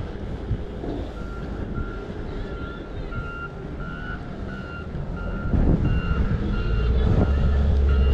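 Reversing alarm of a road-work vehicle beeping steadily, about two beeps a second, starting about a second in. Under it, wind rushes on the microphone, louder in the second half.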